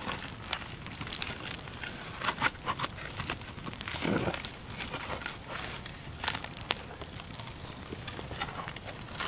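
Campfire crackling, with a wooden stick knocking and scraping among the burning logs as a clay-baked lump of meat is levered over. There is a duller thud about four seconds in.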